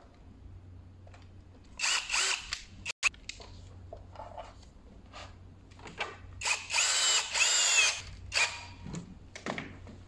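Cordless drill/driver turning screws in a metal cover panel. It runs in short bursts, its motor whining up and falling back each time, with the longest run about two-thirds of the way through. There is a sharp click about three seconds in.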